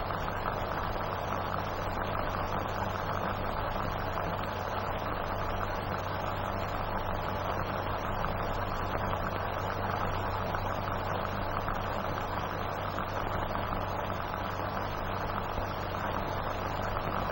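Steady hiss with a low mains-type hum from an old optical film soundtrack, unchanging, with no other sound over it.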